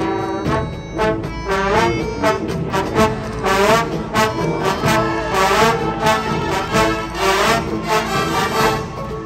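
Drum and bugle corps brass line playing loud sustained chords, with notes that swell and bend in pitch, over accented percussion hits and cymbal-like crashes.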